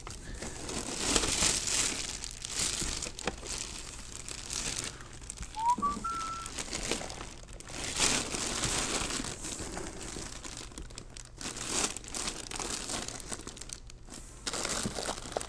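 Plastic wrapping crinkling and rustling in irregular handfuls as hands grip and shift a heavy mini lathe inside its cardboard shipping box.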